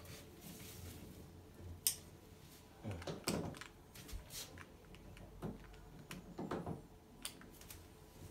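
Faint handling noises from working an inspection camera at a toilet: scattered light clicks and knocks, with a few louder rustling stretches about three seconds in and again later.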